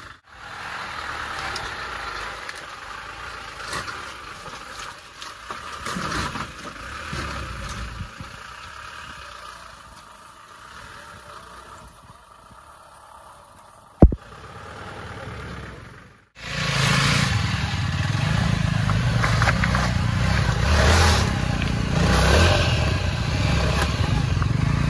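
Motorcycle engines running on an off-road trail, heard across several cut-together shots. A sharp click about 14 seconds in, then from about 16 seconds a louder, steady low engine rumble.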